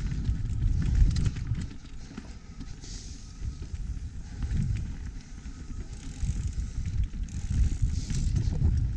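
Mountain bike riding fast down a dirt singletrack, heard from a chest-mounted action camera: a gusting rumble of wind on the microphone and tyres rolling over dirt and leaves, with scattered rattles and clicks from the bike.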